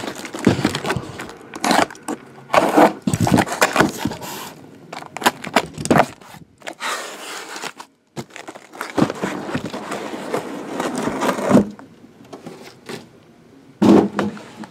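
Cardboard shipping case being opened and its boxes handled: irregular bursts of cardboard scraping and rustling. The sound cuts out for a moment about eight seconds in.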